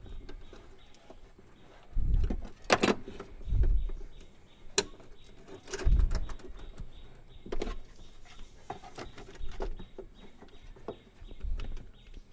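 Scattered clicks, knocks and a few dull thumps from hands working at a car's boot lock mechanism, handling the latch and lock parts while fitting a remote boot-opening actuator.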